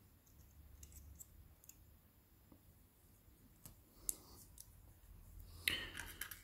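Faint, scattered small clicks and taps as a smartphone's main logic board is lifted out of its frame by hand, with one sharper click about four seconds in.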